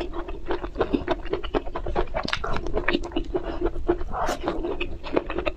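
Close-miked chewing and mouth sounds: a quick, steady run of small wet clicks and smacks as food is chewed.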